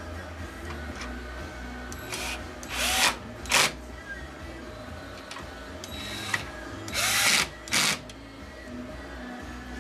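Cordless drill/driver running in short bursts as it drives screws into a laser printer's frame: a group of three bursts about two to four seconds in, and two more about seven to eight seconds in.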